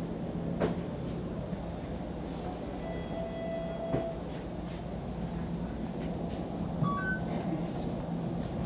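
Steady interior hum of a Toronto Flexity Outlook streetcar standing at a stop, with a few light clicks and a thump, and a short two-note electronic chime about seven seconds in.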